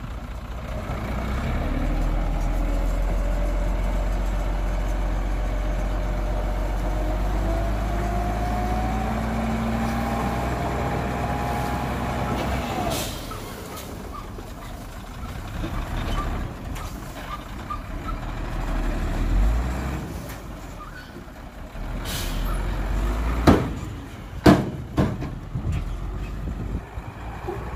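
Dump truck's diesel engine running hard, its note slowly rising for about the first half. It then falls away with a short sharp burst, and the engine runs on more quietly, with several loud sharp knocks near the end.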